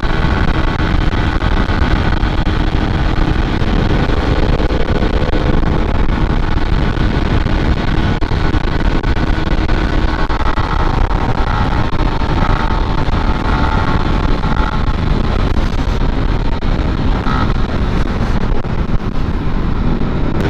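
A 150 cc underbone motorcycle's engine running steadily while riding on the road, under heavy wind noise on the helmet microphone; the engine pitch shifts slightly partway through.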